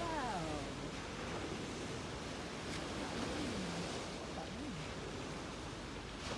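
Steady wash of sea surf on the shore, with a few faint falling calls near the start and in the middle.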